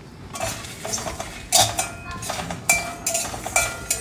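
Long steel spatula scraping and knocking against a dry steel kadai while stirring whole spices and puffed rice as they dry-roast. Three sharper clanks make the pan ring briefly.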